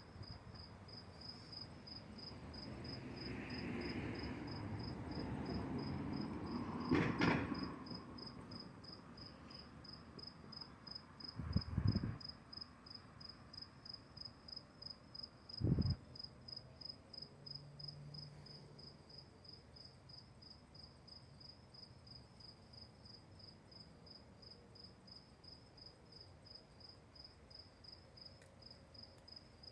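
An insect, most like a cricket, chirping in high, quick, evenly repeated pulses. Rustling in the first several seconds and three soft knocks, the loudest sounds, about seven, twelve and sixteen seconds in.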